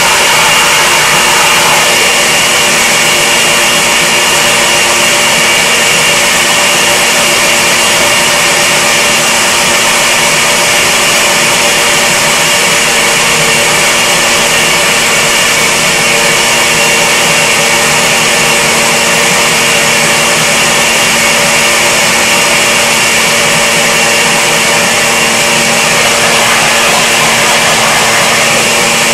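Countertop blender motor running steadily at full speed, puréeing a red chile and tomato adobo sauce.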